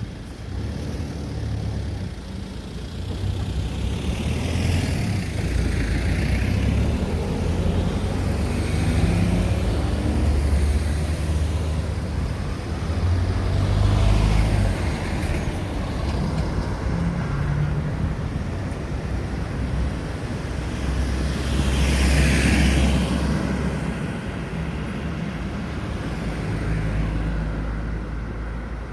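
Road traffic at a crossroads: cars and other vehicles driving past one after another, engine rumble and tyre noise swelling and fading with each pass, the loudest passes about a third of the way in and again about three quarters through.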